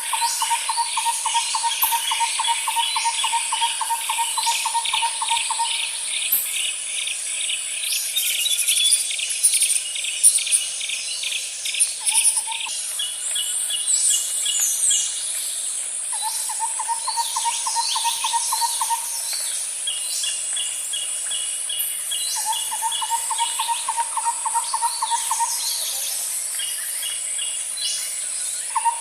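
Nature ambience of birds and insects: a steady high insect buzz runs under repeated bird chirps and short down-slurred calls. A low, rapid trill comes in bouts of a few seconds, four or five times.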